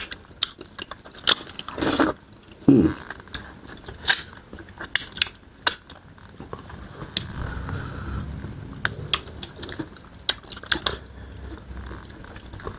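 People eating close to the microphone: chewing and mouth sounds with scattered sharp clicks and smacks.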